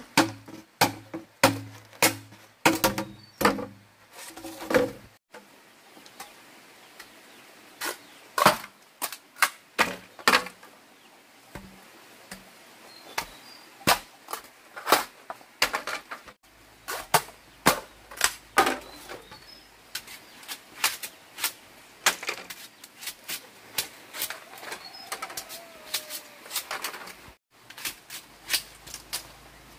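A large knife chopping into and splitting bamboo poles: irregular sharp knocks and cracks, about one or two a second, the first few ringing with a hollow tone.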